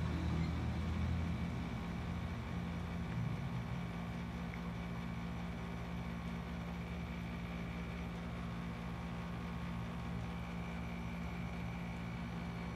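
A steady low hum, like a machine running in the room, with no clear change throughout.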